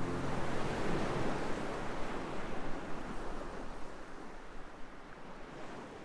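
A steady rushing noise that slowly fades away, while the last low notes of the music die out in the first second.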